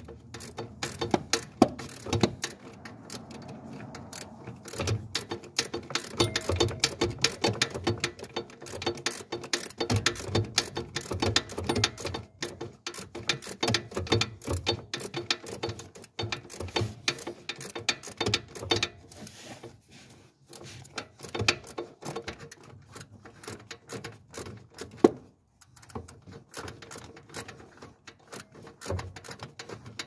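Hand ratchet wrench clicking in quick runs with short pauses, turning a bolt during removal of the starter motor, with one sharp metallic knock about three-quarters of the way through.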